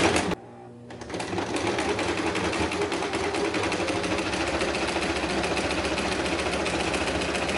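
Electric sewing machine stitching at a fast, even needle rhythm. It stops briefly just after the start and then runs steadily again: a short line sewn backwards then forwards to lock the stitching.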